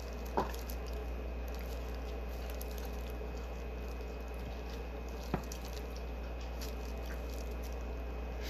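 Boiled shrimp being peeled with plastic-gloved hands: soft wet squishing and small shell crackles, with a sharper click about half a second in and another about five seconds in, over a steady low hum.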